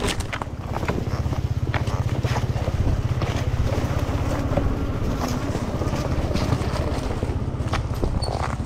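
Electric enduro motorcycle with a 12 kW MG160A motor riding over rough trail: a steady low rumble with many sharp knocks and rattles, and a faint motor whine between about three and five seconds in.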